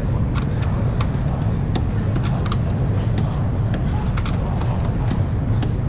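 Steady low mechanical rumble with light clicks scattered irregularly over it.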